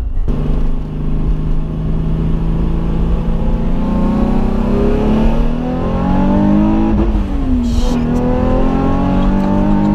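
Supercharged Nissan 350Z's V6 pulling hard under acceleration, heard from inside the cabin: the engine note climbs steadily, drops sharply at an upshift about seven seconds in, then climbs again.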